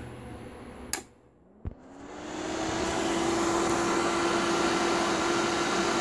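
A switch clicks, then the strong cooling fan inside a six-transistor (6x2879) CB linear amplifier spins up with a rising whine. It settles into a steady, loud whooshing run with a constant hum: the amplifier is powered on and the fan is pushing heat off the heat sink.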